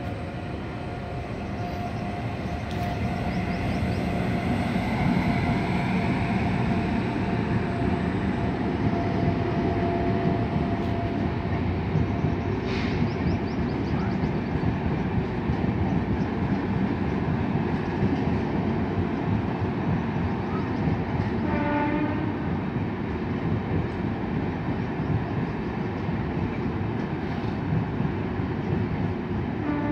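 An empty rake of Indian Railways LHB passenger coaches rolling steadily past, the wheels rumbling on the rails, the noise growing over the first few seconds and then holding. A short horn toot sounds about two-thirds of the way through.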